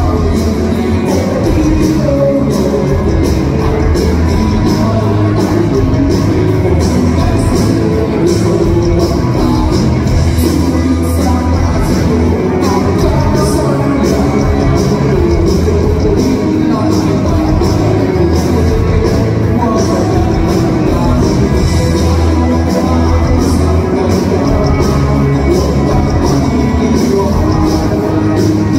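Live rock band playing a song, with electric and acoustic guitars, bass and a drum kit keeping a steady beat under a male lead vocal, amplified through the PA in a large hall.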